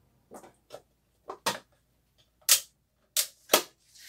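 Tabby cat licking close to the microphone: a string of about eight sharp, irregular wet clicks and smacks, the loudest a little past halfway.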